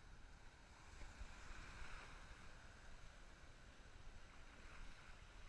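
Faint, even wash of breaking surf and foaming whitewater, swelling a little between one and two seconds in.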